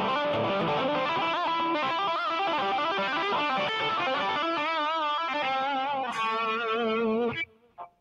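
Electric guitar (an SG) with a distorted tone playing a fast single-note lead lick, with vibrato on some held notes. It stops abruptly about seven seconds in.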